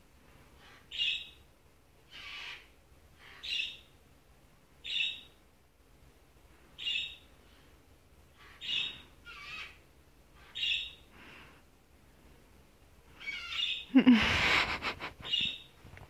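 A white, yellow-crested cockatoo gives short, evenly repeated calls about every one to two seconds. Near the end comes one much louder, longer screech.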